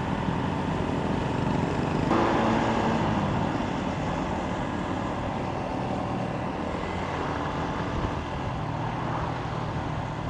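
Single-cylinder engine of a Yamaha Sniper 150 motorcycle running under way, with wind and road noise on the helmet microphone. The engine revs up about two seconds in, then gradually eases off.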